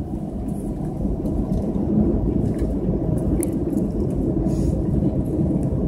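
Airbus A320 cabin noise while taxiing: a steady low rumble of the engines at idle and the wheels rolling on the taxiway, with faint scattered clicks and rattles.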